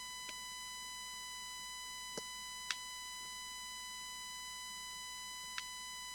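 A steady, high-pitched electronic tone, unbroken throughout, with a few faint light clicks over it, the second of them the loudest.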